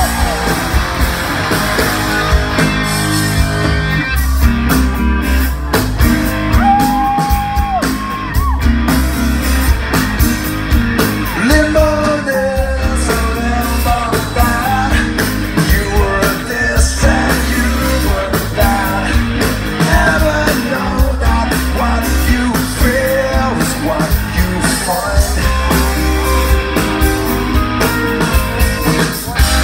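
Live rock band playing at full volume: electric guitars, bass and drums, with a male lead singer singing over them, heard from the crowd.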